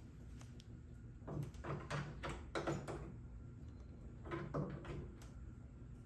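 Metal clicking and clattering from hand tools being worked against a hood latch striker. It comes in two runs of sharp clicks, a longer one starting about a second in and a short one a little past four seconds.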